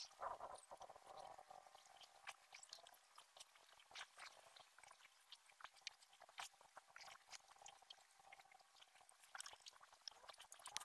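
Near silence: faint scattered clicks and ticks over a light hiss.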